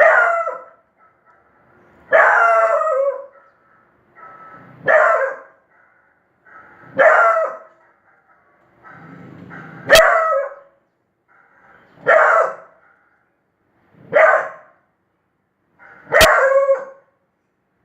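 A dog barking in single barks, eight in all, about one every two seconds.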